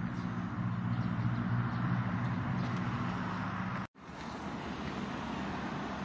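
Road traffic noise: a car's engine hum with tyre noise, steadier in the first few seconds. The sound drops out completely for a split second about four seconds in.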